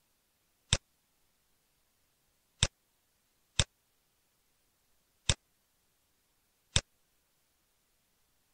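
Five sharp computer mouse clicks, irregularly spaced a second or two apart.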